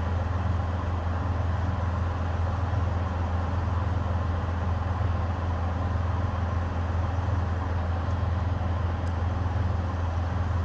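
Semi-truck diesel engine idling steadily: a low, even hum with no revving.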